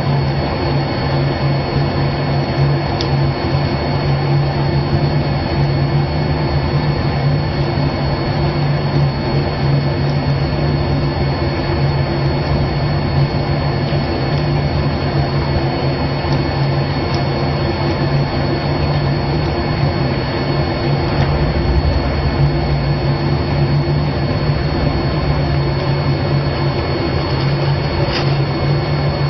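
Steady machine drone with a strong low hum.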